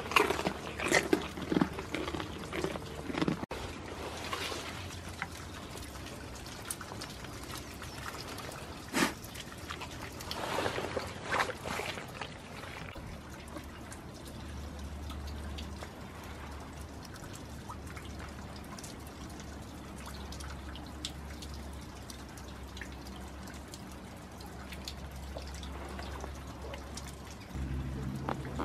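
Steady rain pattering and dripping. In the first dozen seconds goats mouthing and nuzzling close by make a cluster of sharp clicks and knocks over it.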